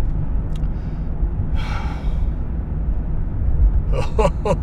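Car cabin running noise, a steady low rumble of engine and road while driving. A breath is heard about two seconds in, and a man's voice briefly near the end.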